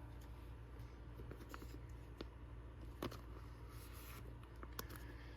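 Baseball cards being handled: faint rustling and scraping with a few light clicks and taps, over a low steady hum.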